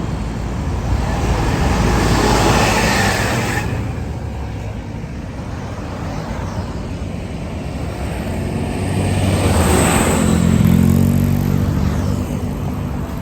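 Large tour buses' engines running and passing by, the sound swelling twice, the second time with a low engine drone.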